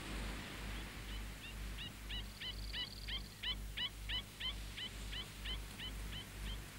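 An animal's repeated chirping call, about three short chirps a second, growing louder toward the middle and fading out near the end, over a faint low pulsing hum.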